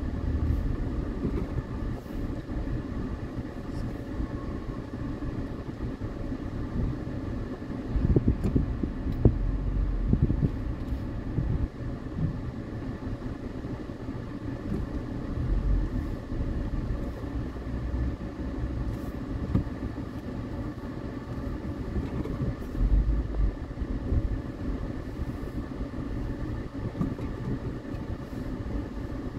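Engine and road noise of a car in slow city traffic, heard from inside its cabin: a steady low rumble with a faint steady whine. There are a few louder low rumbles about a third of the way in and again about three-quarters through.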